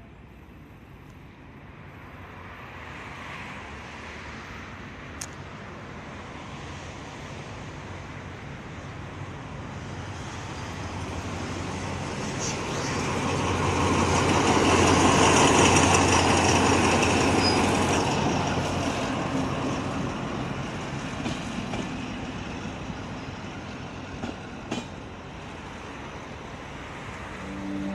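TCDD DE 24 diesel-electric locomotive running past with its passenger coaches. The engine's drone builds as it approaches, is loudest about halfway through as the locomotive goes by, then fades as the coaches roll away, with a few sharp clicks near the end.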